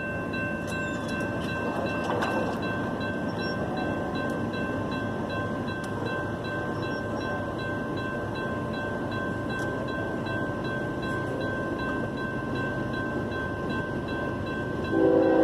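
Freight train's diesel locomotives approaching: a steady rumble, with a couple of steady high tones running throughout and a few faint clicks.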